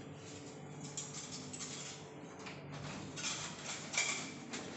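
Quiet room tone with faint shuffling and small clicks. Near the end come a few louder short scraping and rattling sounds as a hotel room door is worked open.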